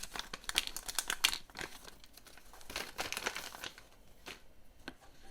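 Crinkly packaging being opened and torn, crackling in two spells, the first over about the first second and a half and the second around three seconds in, with a few light ticks after.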